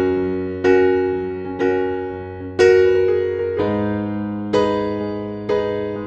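Slow, soft piano music: a chord struck about once a second, each ringing and fading before the next.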